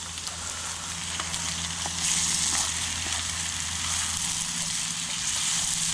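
Fried potatoes with bacon and eggs sizzling in a pan on a Cadac gas grill, with a wooden spatula scraping and stirring in small clicks. The hiss grows louder about two seconds in, over a steady low hum.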